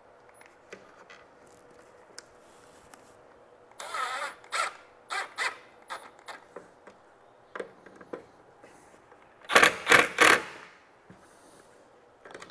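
Milwaukee M12 Fuel cordless driver running in short bursts as it drives screws that hold the soft top down, with the three loudest bursts close together about ten seconds in.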